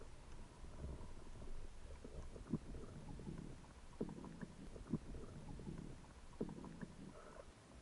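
Muffled underwater sound picked up through an action camera's housing: a low rumble with four short sharp clicks or knocks spread through it.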